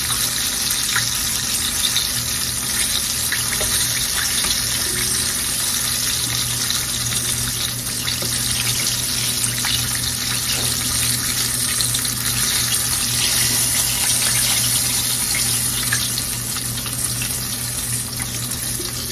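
Chicken pieces sizzling steadily in a skillet of hot frying oil, with a few faint clicks from metal tongs. The sizzle eases slightly near the end as the last pieces come out.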